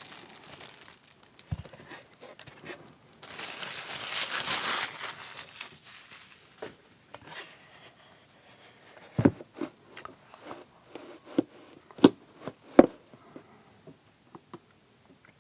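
Plastic packaging crinkling and rustling as a clear acrylic keyboard cover is unwrapped, then a scattering of sharp, hard clacks of the acrylic being handled, loudest a little past the middle.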